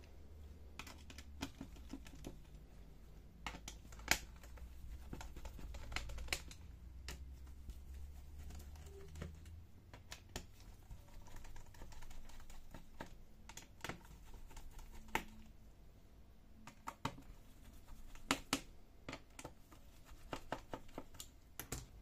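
Scattered light clicks and taps of a small screwdriver loosening the screws on a Lenovo ThinkPad X1 Carbon's plastic bottom cover, in irregular bursts, with a faint low hum that stops about ten seconds in.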